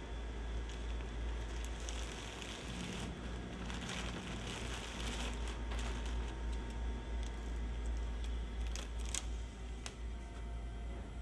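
Plastic bag crinkling as vacuum-packed aluminium printing plates are unwrapped, starting about two seconds in and lasting a few seconds. It is followed by a scattered run of light clicks and taps as the plates are handled. A steady low hum runs underneath.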